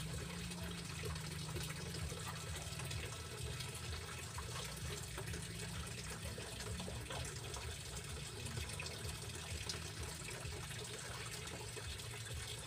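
Steady rushing noise like running water, with faint scattered clicks and scrapes from a fish being cleaned and cut on a chopping board.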